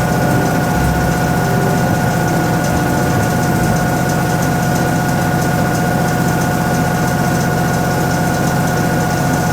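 Toshiba ZABOON top-loading washing machine running a cycle: a loud, steady motor hum with a constant high whine over it.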